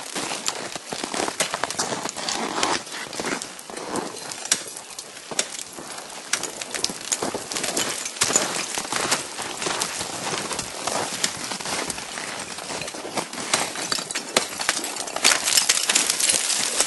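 Ice climbing on a frozen waterfall: ice axe and crampon strikes with chips of ice clattering down, a dense, irregular run of clicks and crackles that gets busier and louder near the end.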